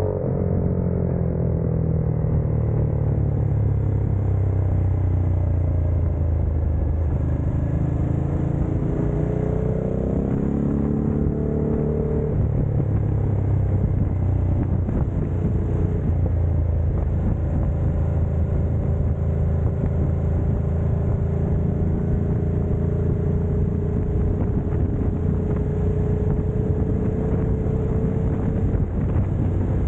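Ducati Multistrada 1260's V-twin engine running under way. Its pitch falls at the start, climbs as the bike accelerates from about seven to twelve seconds in, then holds nearly steady with a slow rise.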